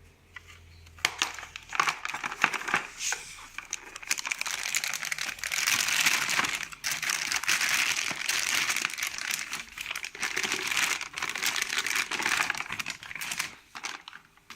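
Packaging crinkling and rustling as it is handled and pulled open, with small clicks and knocks mixed in. It starts about a second in and stops just before the end.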